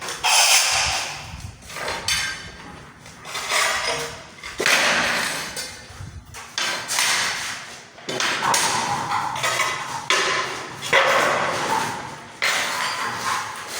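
Repeated scraping strokes on ceramic tile, about seven in a row, each lasting around a second and starting sharply, typical of a tile being scored or its edge rubbed down during cutting.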